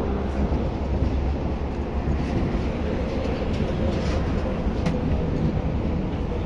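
Small boat's engine running with a steady low rumble.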